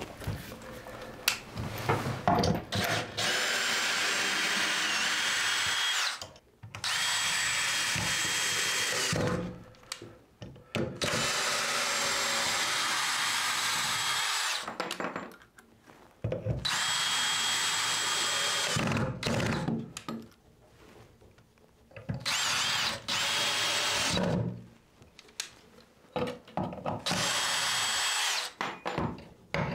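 Power drill running in about seven bursts of two to three seconds, its motor whine rising as it spins up and falling as it stops each time. Short pauses with small knocks come between the bursts.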